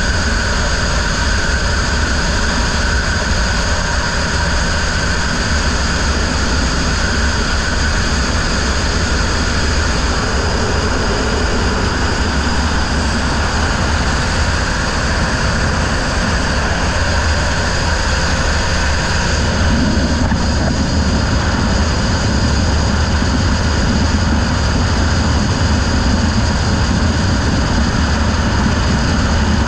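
Racing riverboat's engine running steadily at speed, heard from on board together with rushing wind and water noise. The low rumble grows a little fuller about two-thirds of the way through.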